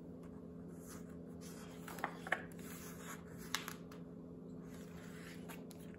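Pages of a hardcover picture book being turned by hand: soft paper swishes and rustling, with a few short taps as the pages are handled, over a faint steady hum.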